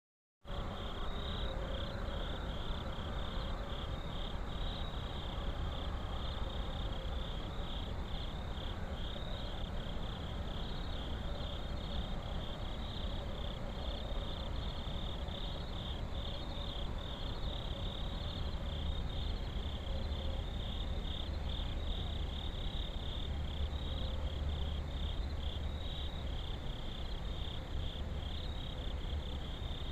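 Chorus of crickets chirping in a steady rapid pulse that cuts in just after the start, over a low steady rumble.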